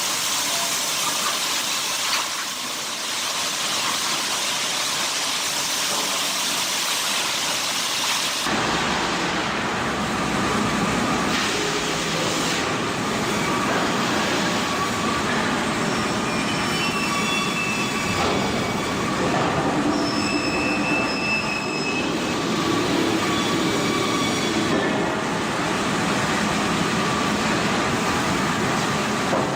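Sawmill machinery running and cutting wood, a loud steady din. About eight seconds in it changes abruptly from a high hiss to a fuller, deeper machine noise with high whining tones from the saws.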